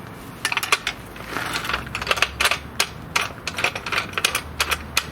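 Irregular string of sharp metallic clicks, taps and clinks from handling a steel pipe and setting it in the chop saw; the saw's motor is not running.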